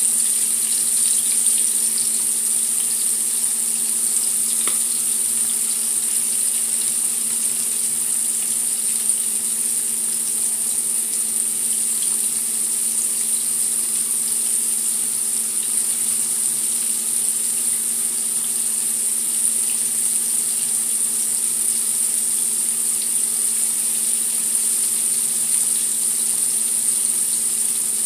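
Breaded catfish nuggets deep-frying in a skillet of hot oil, giving a steady, even sizzle. A faint steady hum lies beneath it.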